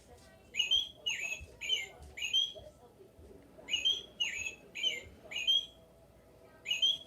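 Recorded American robin calls played from the sound box of an Audubon plush robin when its nose is squeezed. The calls come in quick groups of about four sharp notes, with short pauses between the groups.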